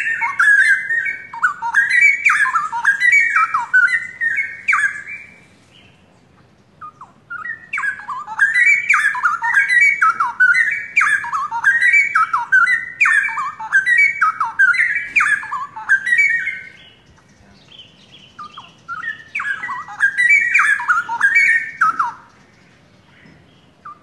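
Straw-headed bulbul (cucak rowo) in full song: loud, rich, rapidly warbled phrases in three bouts separated by short pauses.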